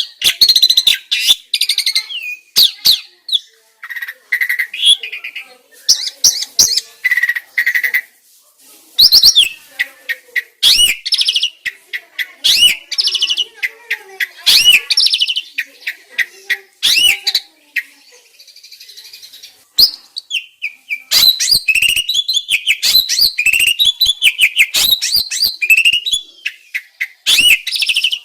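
A songbird singing a fast, varied song of sharp clicks, whistled sweeping notes and chatter, pausing briefly about 8 seconds in and again around 18 to 20 seconds in. It is a masteran recording, a bird song played to captive starlings to train them to sing.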